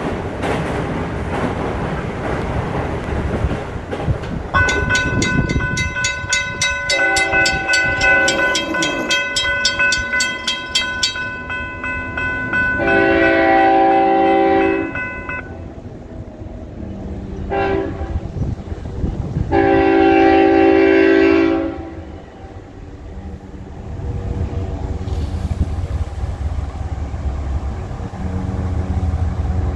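Railroad crossing bell ringing with an even beat while the gates come down, then a freight locomotive's air horn sounds the grade-crossing signal: two long blasts, one short and a final long blast, the last ones loud. Near the end a low rumble of the approaching diesel locomotive builds.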